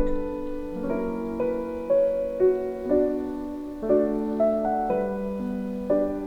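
Background music: a gentle solo piano piece, chords sounding softly about once a second.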